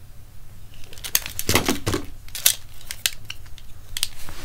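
Handling noise: irregular sharp clicks and light rattles of small hard objects turned over in the hands, most of them between about one and four seconds in.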